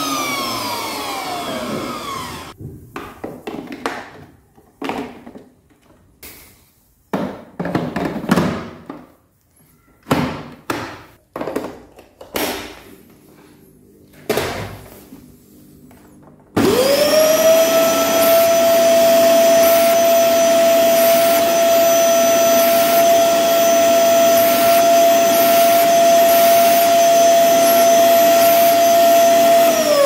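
LG VC3318 canister vacuum cleaner's V1J-PH32 motor winding down, then a stretch of irregular knocks and handling noise. About 17 seconds in the motor starts, spins up quickly and runs steadily with a high whine: the machine working again after its capacitor was replaced and its motor-chamber seal repaired.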